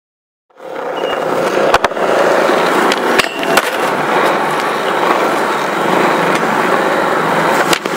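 Skateboard wheels rolling over smooth pavement, a steady rough rolling noise that starts about half a second in, with a few sharp clacks of the board along the way.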